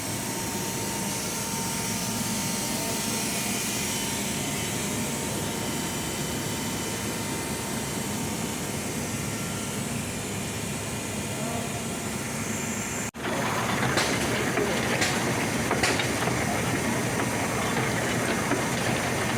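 Packing-line machinery running with a steady mechanical noise. About thirteen seconds in it breaks off for an instant, then returns louder with a few sharp clicks.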